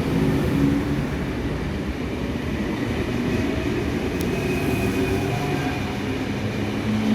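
Sydney Trains electric passenger train running: a steady rumble with a few faint high tones over it.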